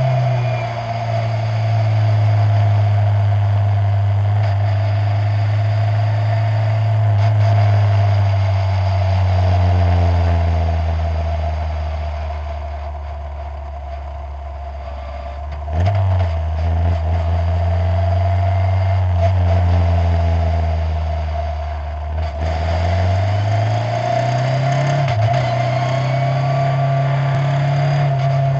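Skip Barber open-wheel formula race car's engine, heard from the cockpit at a slow pace on part throttle. The note holds steady, sags and quietens through the middle, steps up sharply about halfway through, dips again, then climbs near the end. A steady high whine runs under it throughout.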